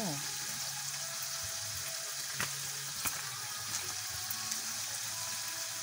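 Corned beef and onions sizzling in a pan: a steady hiss, with two faint clicks a little over two and three seconds in.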